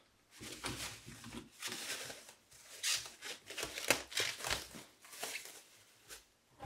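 Clear plastic bag crinkling and rustling in irregular bursts as it is pulled open and worked off a computer motherboard, loudest about three and four seconds in.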